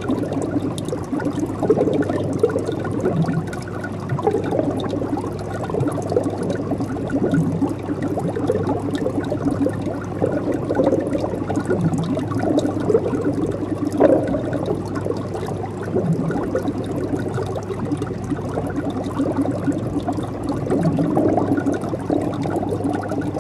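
Pond water sloshing and splashing as a crowd of koi churns at the surface, an even, irregular water sound with no pause.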